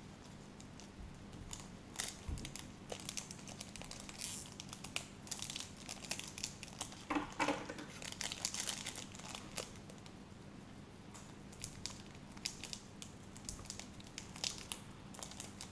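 Crinkling and tearing of a trading-card pack wrapper being opened by hand, in irregular spells of sharp crackles.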